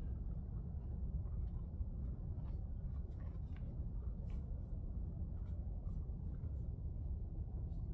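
Faint scattered crunching and rustling of hay, most likely a horse chewing its feed, over a steady low rumble.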